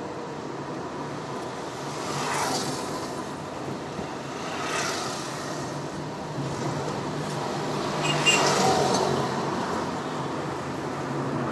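Car driving on a city street, heard from inside the cabin: steady engine and road noise, with passing traffic swelling by a few times and a brief sharper sound about eight seconds in.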